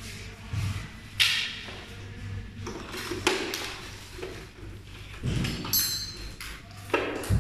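Handling noises at a metal door control box, with scattered knocks, clicks and rubbing as hands work the cables and reach inside the box. A brief high scrape comes near the middle, over a steady low hum.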